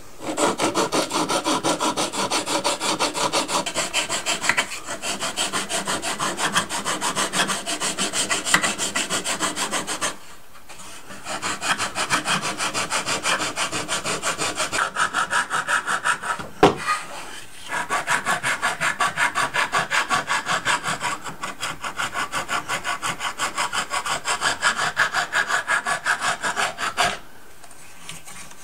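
Sanding block rubbed in rapid back-and-forth strokes over the wooden stringers and bulkhead edges of a model boat hull frame, fairing the stringers to the bulkhead lines. The strokes stop briefly three times, and there is a single sharp knock about two thirds of the way through.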